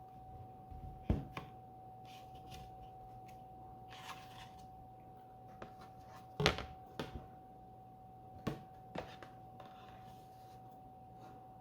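Box set packaging and disc cases being handled: a few sharp knocks and clicks, the loudest about a second in, midway and a little later, with light rustling between them, over a faint steady tone.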